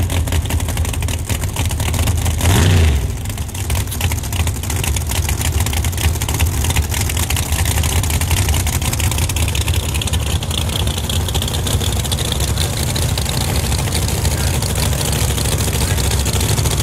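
Drag-racing Corvette's big V8 idling loud and choppy, with one quick rev blip about two and a half seconds in.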